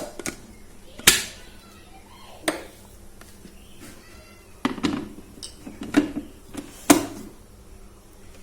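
Kitchen utensils and dishes clinking and knocking, about half a dozen sharp strikes scattered over several seconds.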